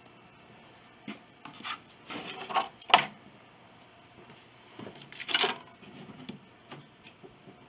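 Short rubbing scrapes on wood, a few scuffs in the first three seconds ending in a sharp click, then another longer scrape about five seconds in.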